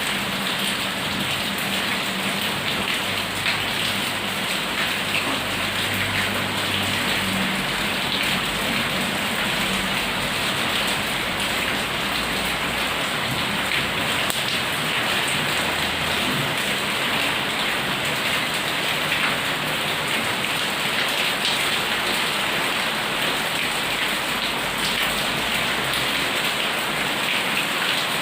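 Heavy rain pouring steadily, with a low rumble from about three to eight seconds in.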